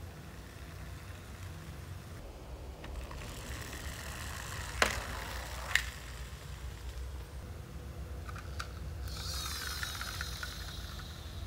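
Small plastic toy trucks rolling across a hard tiled floor: a rolling rattle of little wheels in the first half, two sharp clacks near the middle, and a whirring rattle near the end as another toy truck is pushed along.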